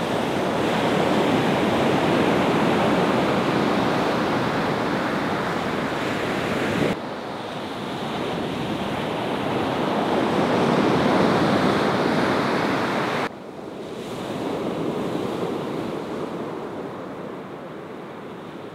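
Ocean surf rolling in and washing up the shore, rising and falling in waves, with wind buffeting the microphone. The level drops abruptly about seven and again about thirteen seconds in.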